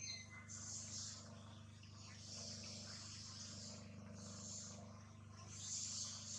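Faint insects buzzing high in repeated stretches, each lasting from about half a second to over a second, over a steady low hum.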